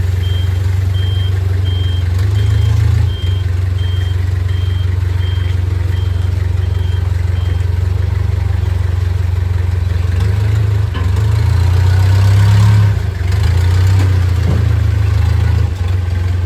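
A vehicle engine running with a steady low rumble that swells twice. Over the first eight seconds a high electronic beep repeats about every 0.7 seconds, like a vehicle's reversing alarm.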